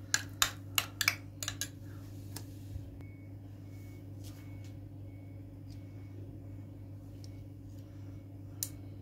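A spoon clicking against a yogurt container as thick yogurt is scooped out: a fast run of about eight sharp clicks in the first two seconds, then only a few soft taps over a steady low hum.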